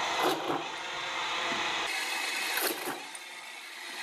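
CNC-converted mini metal lathe running, a steady mechanical whine with several held tones. Two pairs of sharp knocks come through, about a third of a second in and again a little past halfway.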